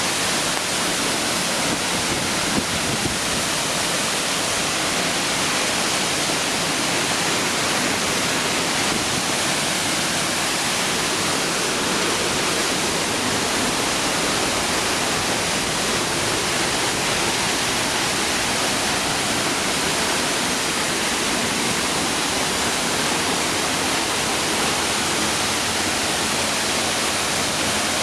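Jion Falls, a waterfall, with water falling and splashing into its pool in a steady, unbroken rush of noise.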